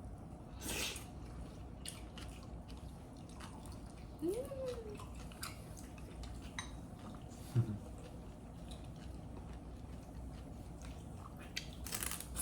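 Quiet eating sounds: chewing with scattered small clicks and short bursts of utensils and food, and a brief hummed voice sound about four seconds in.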